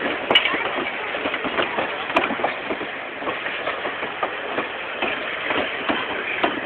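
A train rolling along the track, with a steady rumble and irregular rattling and clacking from the wheels and cars.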